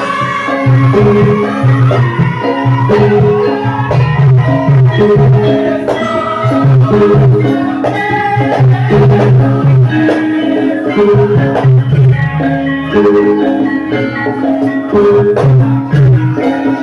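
Traditional Javanese dance music: tuned struck percussion ringing in held notes over a steady, repeating low drummed beat.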